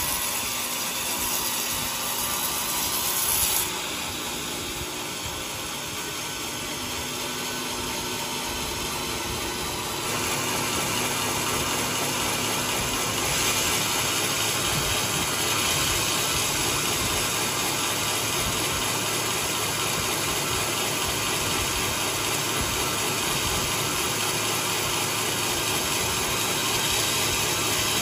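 Large sawmill running steadily while sawing a coconut log. The noise steps up louder about ten seconds in.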